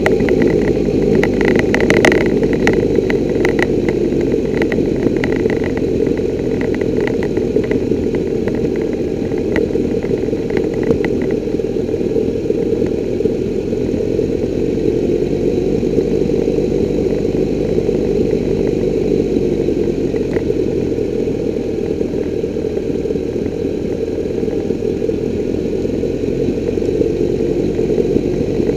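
Triumph Tiger 1200's three-cylinder engine running steadily as the motorcycle descends a steep lane. For about the first ten seconds, loose gravel clicks and pings under the tyres; after that only the engine and road rumble remain.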